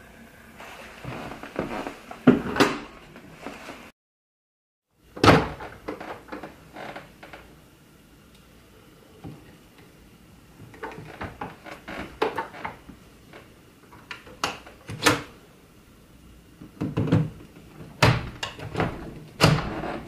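Irregular hard-plastic clicks, knocks and clunks from a Kenmore 81414 canister vacuum being handled with its motor off: parts and latches snapping as the wand is taken off and the motorized floor head is released.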